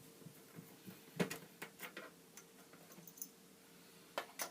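Scattered light clicks and taps of small plastic and metal parts being handled and unclipped inside an opened Commodore 64C, the loudest about a second in, with a faint steady hum underneath.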